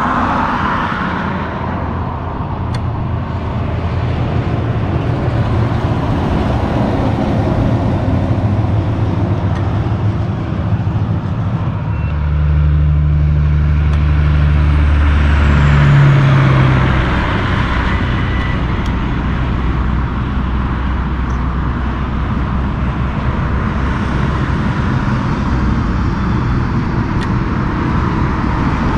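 Highway traffic going past: tyre noise and engines of cars and tractor-trailers, with a heavy diesel truck's low engine drone loudest about halfway through.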